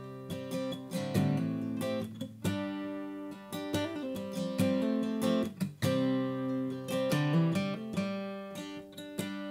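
Capoed acoustic guitar playing chords, each struck and left ringing before the next, recorded raw through a budget USB condenser microphone (FiFINE K669B) with no compression or EQ.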